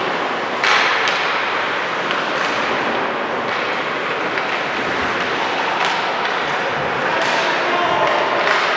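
Gym sounds of a basketball game in play: a steady hubbub in a large hall, with thuds and a few sharp knocks, near the start and near the end, from the ball and players on the court.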